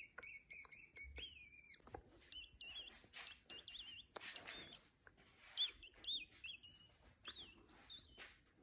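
A man making a bird-like song by sucking air in through a small hole between pressed lips: short, high, squeaky chirps that swoop in pitch, coming in quick runs of several with brief pauses between.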